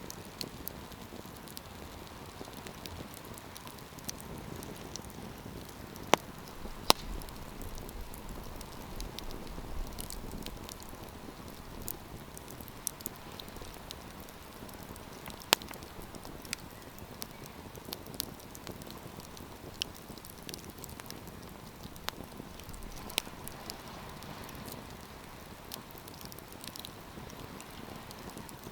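Wood campfire burning, with a steady hiss and scattered sharp crackles and pops; the loudest pops come twice around six to seven seconds in and once about halfway through.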